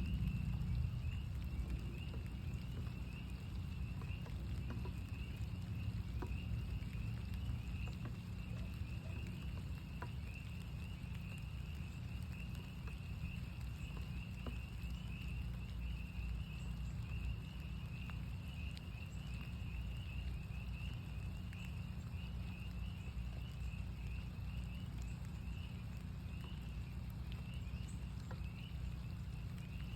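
A chorus of northern spring peepers, many frogs giving rapid overlapping high peeps without a break, over a light patter of rain and a steady low rumble.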